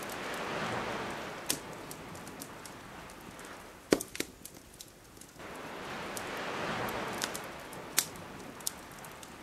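Two slow swells of rushing water, each building and fading over a few seconds like waves washing in on the shore, under a campfire crackling with sharp pops; the loudest pop is just before four seconds in.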